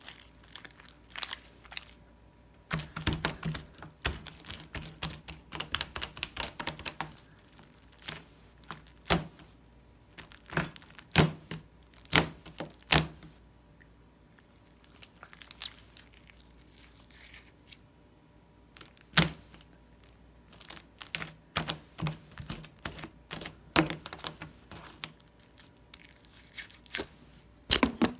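Overly sticky pink slime being squished and pulled apart by hand, sticking and unsticking from the fingers and table with irregular wet pops and crackles. Busy runs of crackling come a few seconds in and again about two-thirds through, with single louder pops between.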